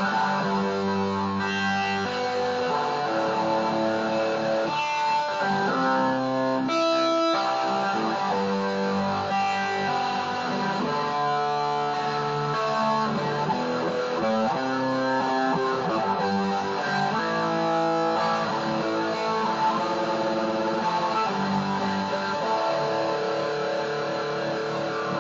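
Electric guitar played solo: a slow run of held single notes and chords, each ringing for about a second before the next, with a short scraping strum about seven seconds in.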